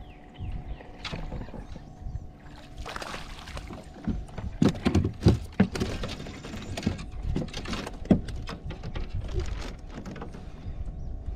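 Water sloshing and splashing around a plastic kayak, with a run of irregular knocks and thumps against the hull, thickest in the middle few seconds.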